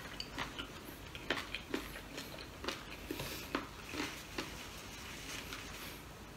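Eating sounds: irregular soft clicks and smacks from chewing and from fingers picking meat off a piece of chicken, thinning out about four and a half seconds in.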